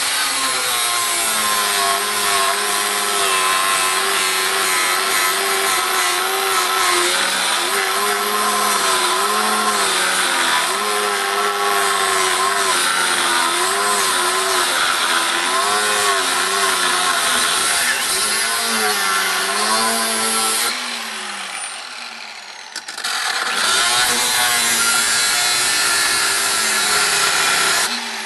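Angle grinder with a cutoff wheel cutting through the metal case of a large oil-filled pulse capacitor, its motor pitch dipping and recovering as the wheel bites. It eases off for a couple of seconds about three-quarters through, then cuts again.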